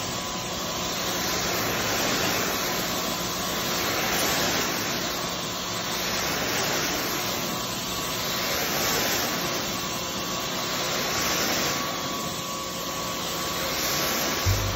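Pressure washer spraying water onto an area rug: a steady hiss of spray with a faint hum under it, swelling and fading every two to three seconds as the wand sweeps across the rug.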